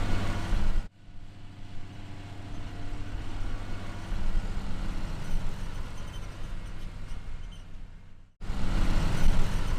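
A vehicle engine running steadily with a low hum, heard in three pieces split by abrupt cuts about a second in and near the end, the middle piece quieter.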